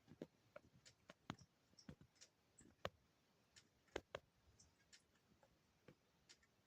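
Near silence with faint, irregular small clicks and taps, the clearest just before three seconds and about four seconds in.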